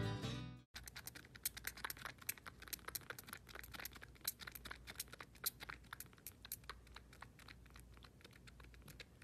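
Young kitten suckling from a milk bottle's rubber nipple: faint, quick, irregular little clicks and smacks, several a second.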